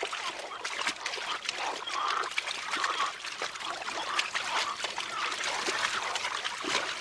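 Water splashing and sloshing as people wade and throw it about, with scattered spatters and people's voices crying out.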